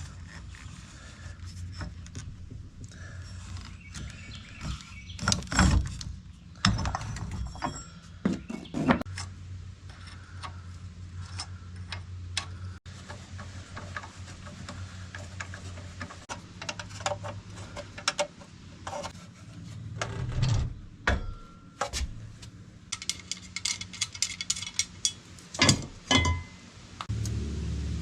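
Hand tools and metal parts being handled while working on a mini bike: scattered knocks and clicks over a steady low hum, with a quick run of clicks near the end.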